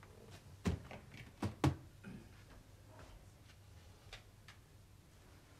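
A wooden chair being pulled out from a table and sat on: three sharp knocks in the first two seconds, then a few fainter clicks.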